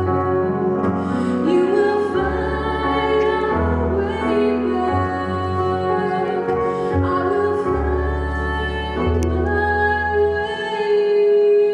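A woman singing live into a hand-held microphone, amplified over the hall's sound system, with long held notes over an instrumental accompaniment with a bass line.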